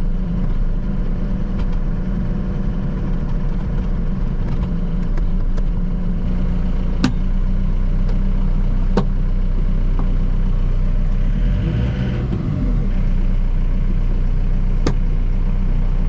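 Tractor engine running steadily while driving a PTO-powered dirt auger. There are a few sharp clicks, and the engine note shifts briefly about twelve seconds in.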